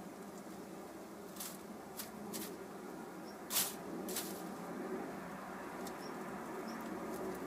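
Short scratchy rustles of dry straw nesting material, about half a dozen, the loudest about three and a half seconds in, as a hen shifts her weight on the nest.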